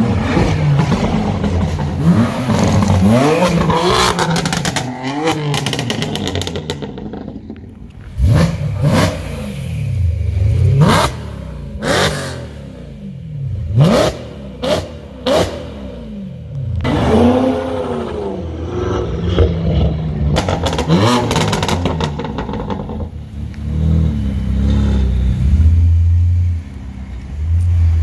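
A convoy of BMW M3 and M4 sports cars driving past at low speed, their engines revving up and down repeatedly. Between about 8 and 16 seconds in there are several sharp exhaust cracks and pops, and the revving continues afterwards.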